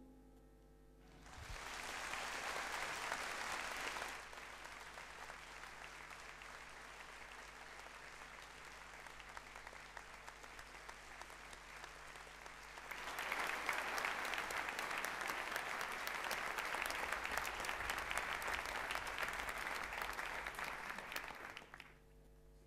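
The last piano notes die away, then an audience applauds: a first loud round of clapping, a softer steadier stretch, and a louder swell about halfway through that cuts off suddenly near the end.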